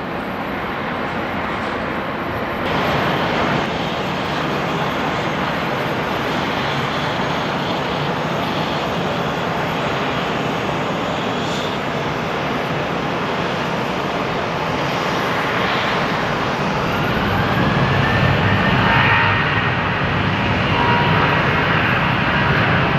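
Boeing 737-800 jet engines running, heard across the airfield as a steady roar. About three-quarters of the way in the roar grows louder and a rising whine comes in.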